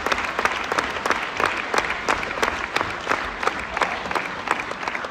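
Theatre audience applauding: dense, overlapping clapping with a few louder single claps standing out, slowly fading.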